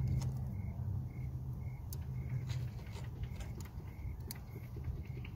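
A steady low hum with a few faint metallic clicks as side cutters grip and lever a screw threaded into a broken oil dipstick stuck in its tube.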